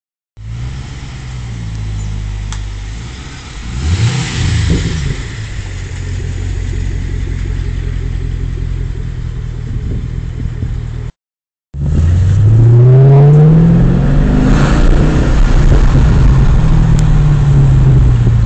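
Holden VE SS V's V8 running through a Redline KPM 2.5-inch cat-back exhaust, idling with one quick rev blip about four seconds in. After a cut it is louder, the revs climb over about two seconds and then hold steady.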